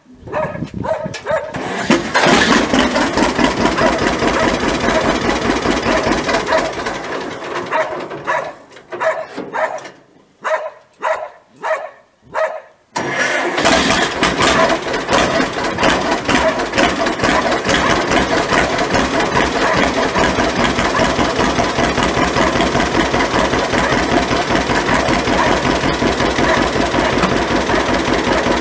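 1954 John Deere 60's two-cylinder gas engine starting and running, then slowing to a few widely spaced separate pops about eight to twelve seconds in, before picking up again suddenly and running steadily.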